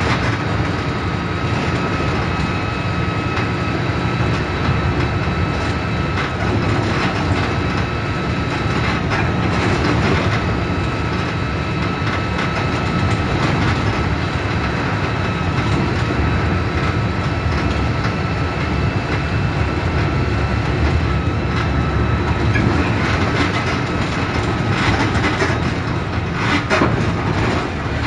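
Mercedes-Benz OF-1721 BlueTec 5 bus with a Caio Apache Vip IV body, on the move. Its diesel engine drones steadily under a thin, steady high whine, with scattered clicks and rattles.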